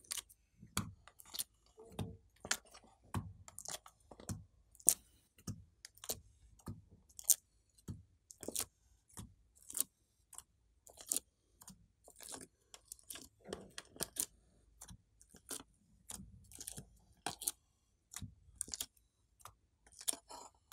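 Irregular sharp clicks and soft sticky crackles, about two a second, as colored slime pieces are popped out of a thin clear plastic mold tray and pressed onto glossy slime.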